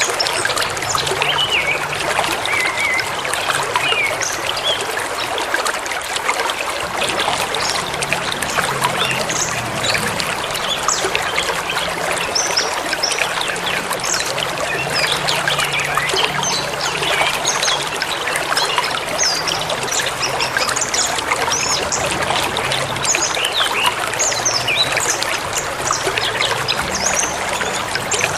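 Forest river running steadily, with small birds chirping and calling in many short notes over the water.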